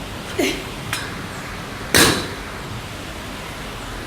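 Metal gym equipment clanking: a couple of light knocks, then one loud, sharp clank with a short ringing tail about two seconds in.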